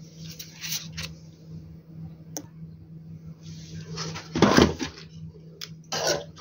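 Clicks, knocks and scraping as a circuit board is handled and pushed into an inverter's casing, the loudest a scraping rustle about four and a half seconds in and a shorter one near the end, over a steady low hum.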